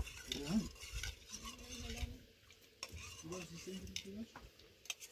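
Pots and utensils clinking and scraping, with short, low voice sounds over it.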